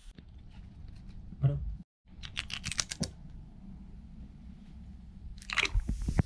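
Crinkling and tearing of a Mentos roll's wrapper as it is opened, a quick cluster of crackles about two seconds in. Near the end a louder rush as the mints go into the Coca-Cola and it starts to fizz and foam.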